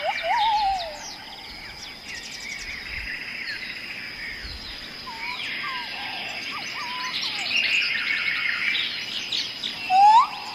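Several songbirds singing and chirping together. A loud warbling whistle that falls away comes at the start, and a run of short rising whistles comes near the end.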